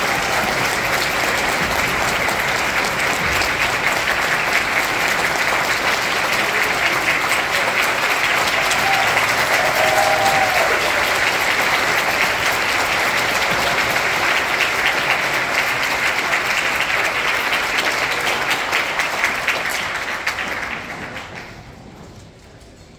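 Audience applauding at the end of a concert band piece, steady and dense, with a short high cheer about ten seconds in, then dying away about twenty-one seconds in.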